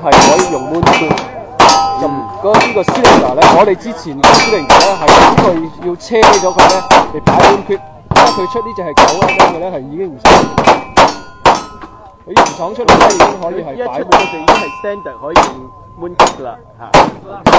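Steady gunfire on a shooting range, shots about twice a second with no let-up, many of them followed by the brief ringing clang of steel targets being hit.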